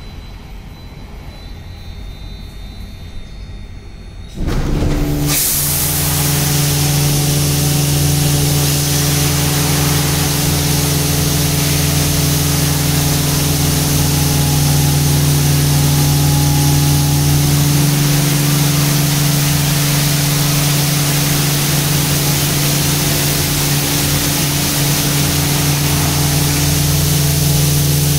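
Tammermatic T700 car wash's turbo top high-pressure wash: about four seconds in, the high-pressure pump kicks in with a sudden jump in level. Water jets then spray with a loud, steady hiss over the pump's steady hum.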